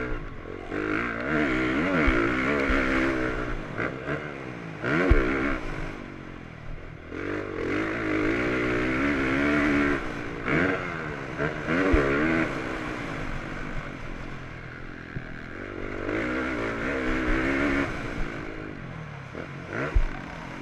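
Motocross bike engine heard close up from an onboard camera during a race lap, revving up hard and easing off again and again. Three sharp knocks come at intervals.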